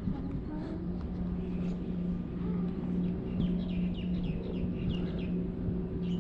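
Wind rumbling on the microphone over a steady low hum. A bird calls a quick run of short descending notes in the middle.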